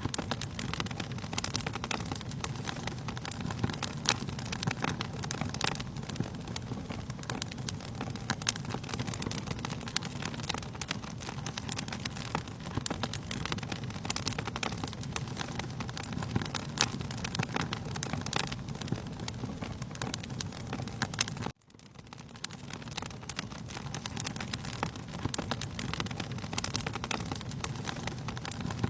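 Wood fire in a fireplace crackling steadily, with frequent sharp pops over a low rush of flame. The sound cuts out for an instant about three-quarters of the way through and fades back in.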